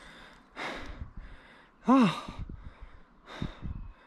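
A runner breathing hard: separate heavy breaths about a second apart, one voiced as a short "haa" that rises and falls in pitch about two seconds in.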